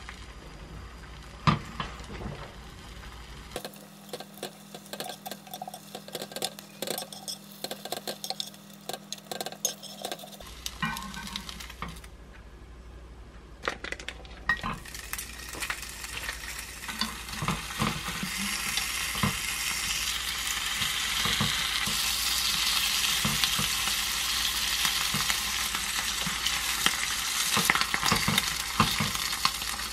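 Frying in a square nonstick egg pan: at first only quiet scraping and clicks, then about halfway through a sizzle starts and grows steadily louder, with chopsticks tapping the pan as round slices of duck are laid in near the end.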